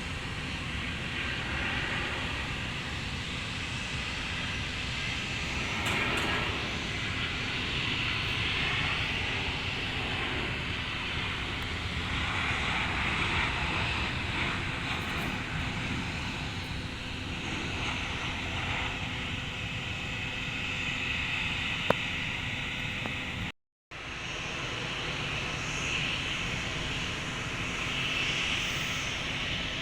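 Jet airliner engines on landing approach, a steady rushing noise that swells and eases. The sound cuts out completely for a moment about two-thirds of the way through.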